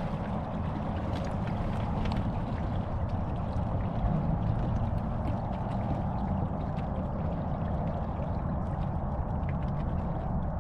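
Small boat motoring slowly: steady motor rumble with water washing and splashing along the hull, and faint scattered ticks.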